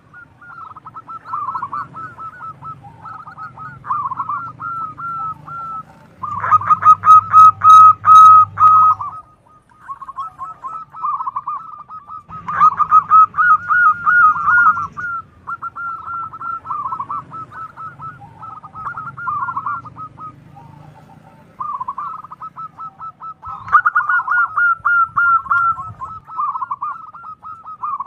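Zebra dove (perkutut) singing: a near-continuous run of fast, stuttering coos, with louder bouts about six, twelve and twenty-four seconds in.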